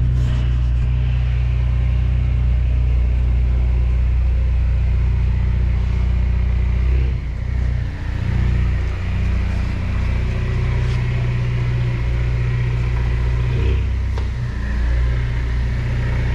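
Car engine running at a steady speed with a low drone; the sound dips briefly about seven seconds in and again near fourteen seconds.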